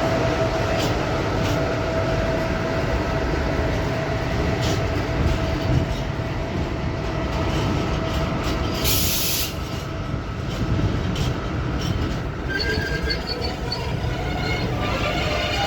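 Freight train hauled by an E494 electric locomotive rolling slowly through the station with a steady rumble and squealing wheels and brakes, with a short hiss about nine seconds in and higher-pitched squeals near the end.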